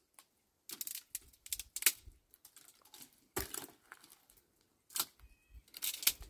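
Irregular dry crackles and snaps of dry wood, a dozen or so sharp clicks spread unevenly, the loudest about two, three and a half and six seconds in.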